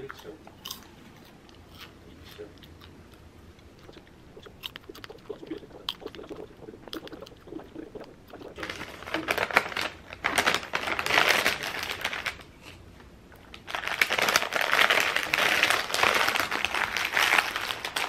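Faint crunching and chewing of popcorn with small rustles. Then, from about eight seconds in, a crinkly plastic snack bag is handled and opened in two long, loud stretches of crinkling.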